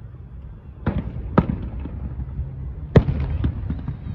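Fireworks display: aerial shells bursting in sharp booms, three of them standing out with the loudest about three seconds in, amid lighter crackling.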